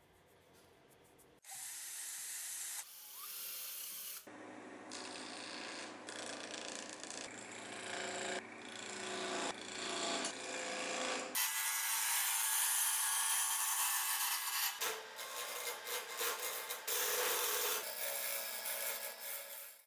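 Small wood lathe running while a turning chisel cuts a spinning oak handle blank, a steady motor hum under the scrape of the tool. About halfway through the cutting gets louder and harsher.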